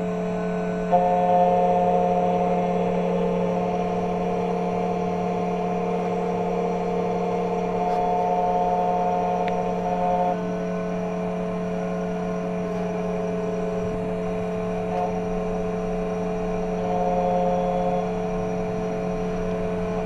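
Xtool KNC91 CNC key cutting machine milling a Suzuki key blade: a steady motor hum with a higher whine that comes and goes several times as the cutter works along the blade.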